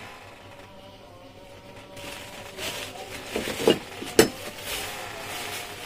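Metal outboard gearbox parts, bearings and gears, clinking and knocking together as they are handled and fitted by hand. A short cluster of sharp clinks comes a little past halfway.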